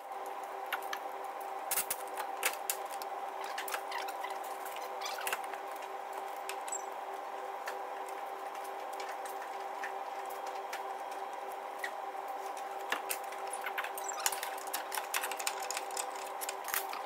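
Scattered light clicks and knocks of hand tools and metal parts as a gearbox is worked back into place on a car from underneath, over a steady mechanical hum. The clicks come more often near the end.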